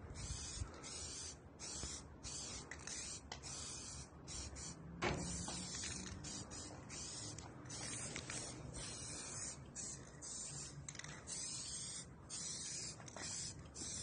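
Aerosol spray-paint can hissing in many short bursts, about one or two a second, while graffiti is written on a wall. A single knock sounds about five seconds in.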